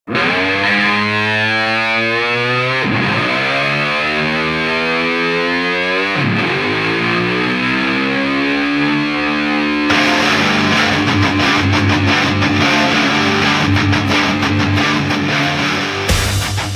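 Rock intro music: a distorted electric guitar plays long upward-sliding sweeps that restart twice. At about ten seconds drums come in with a fast, driving heavy-rock beat under a held guitar note.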